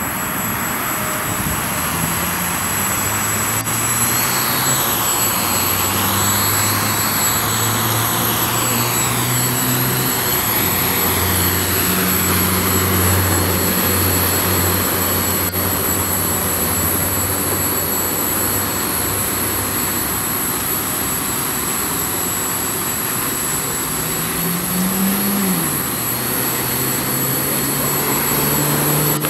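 Small DIY quadcopter's electric motors and propellers whirring as it hovers just above the ground under sonar altitude hold, the motor pitch wavering up and down as the flight controller keeps adjusting the motor speed, with a brief rise and fall in pitch near the end.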